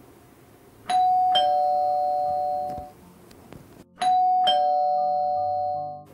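A two-note ding-dong doorbell chime, rung twice about three seconds apart. Each time a higher note sounds, then a lower one half a second later, and both ring on and fade over about two seconds. It signals a visitor at the door.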